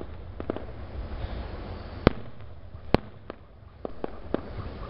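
Aerial fireworks shells bursting: a run of sharp booms, about seven in all, with the two loudest about two and three seconds in, over a continuous low rumble.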